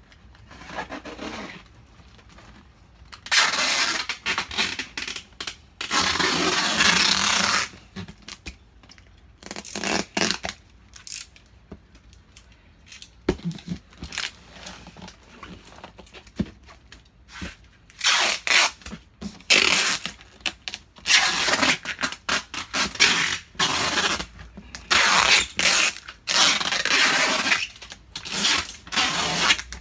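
Clear packing tape being pulled off its roll in several long, loud strips and pressed onto a cardboard box, with cardboard rustling and handling clicks between the strips.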